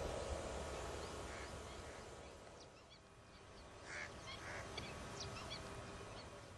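Distant honking calls of large waterbirds: a short call about a second and a half in and two more around four seconds in, with faint high chirps of small birds between them.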